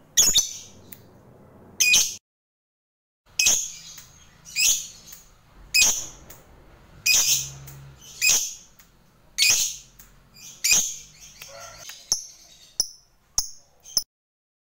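Lovebird giving short, sharp, high-pitched chirps, one about every second, with a quicker run of shorter, fainter chirps near the end.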